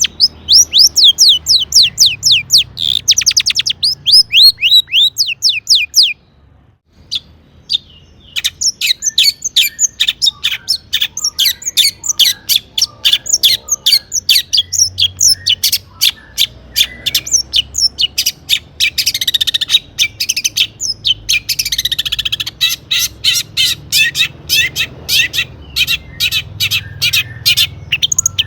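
Long-tailed shrike (cendet) singing: fast runs of short, sharp, repeated high notes, with a brief pause about six seconds in.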